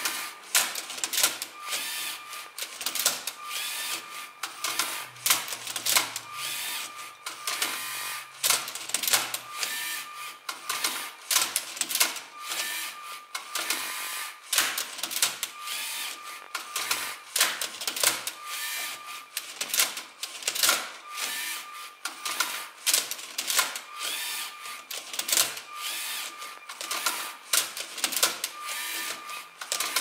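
LEGO SPIKE Prime Rubik's Cube solving robot at work: a rapid, irregular clatter of plastic clicks and knocks as its arm tips the cube and its turntable twists the layers, with short motor whines recurring every second or two.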